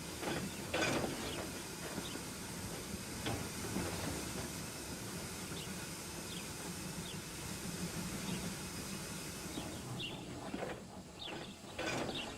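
Steam locomotive sound effect: a steady hiss of escaping steam with a few scattered knocks and clicks, the hiss dropping away about ten seconds in.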